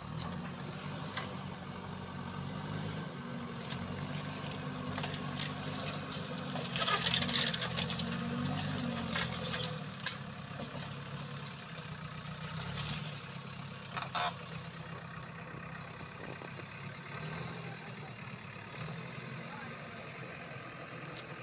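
JCB 3DX backhoe loader's diesel engine running steadily while its front loader bucket shoves demolition debris. A burst of cracking and clattering of wood and debris comes about a third of the way through, with single sharp snaps later.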